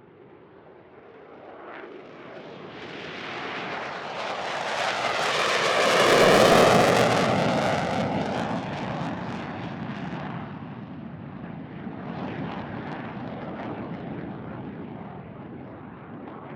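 Jet aircraft, the X-59's single F414 turbofan, flying past after takeoff: its noise builds to a peak about six seconds in, with a sweeping, phasing tone as it passes, then fades away.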